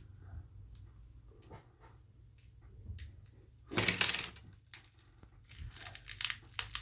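Small-parts handling during a smartphone repair: faint clicks and taps, a loud rough burst of noise lasting about half a second around four seconds in, then a run of small clicks and scratches near the end.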